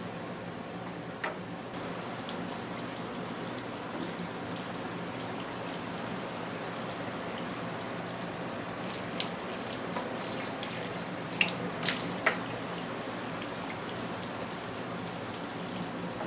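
Kitchen faucet turned on about two seconds in, its stream running steadily into a stainless steel sink while sprigs of lavender are rinsed under it by hand. A few small splashes and clicks come through near the middle.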